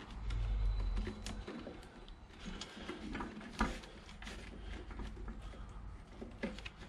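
Hands working connectors and hoses under a motorcycle fuel tank: scattered small clicks and knocks with rustling handling noise, the sharpest click about halfway through.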